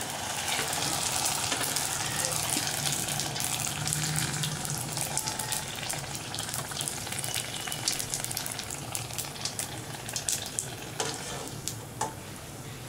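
A semolina puri deep-frying in hot oil in a kadai, sizzling and crackling steadily as it puffs up under a perforated metal skimmer. The sizzle grows softer near the end, with a couple of light clicks.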